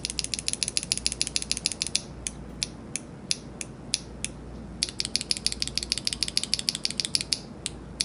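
Plastic ePBT keycap on a RAMA Duck mechanical switch, held in the fingers and pressed rapidly: the light, bright clack of an ordinary plastic keycap. Two fast flurries of clicks, with a few slower, spaced clicks between them.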